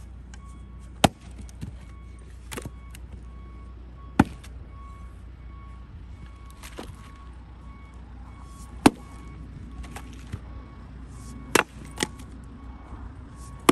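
Axe splitting firewood rounds on a chopping block: a series of sharp cracks of the blade biting and the wood splitting, about seven or eight strikes one to two seconds apart, over a steady low rumble.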